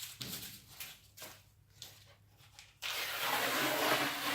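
Masking tape being peeled off a screen-printing screen: short crinkling rustles, then a long, loud ripping peel of about a second and a half near the end.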